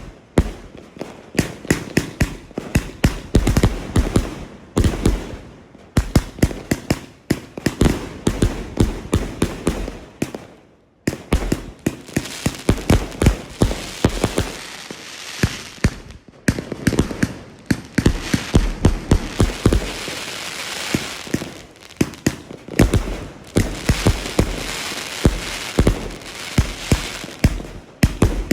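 88-shot firework cake firing: a rapid run of launch thumps and bursting bangs, several a second, with crackling between the shots and short pauses about 6 and 11 seconds in.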